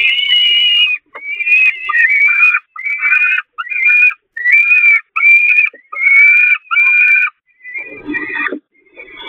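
Peregrine falcon chicks begging for food: a run of about ten shrill, high-pitched calls, each about half a second long and coming about once a second. The calls stop near the end and give way to a rougher, scratchier sound.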